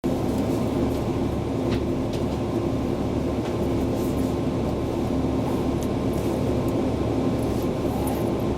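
Steady running noise heard from inside a limited express train's passenger car: a constant low hum with a few faint, light clicks and rattles.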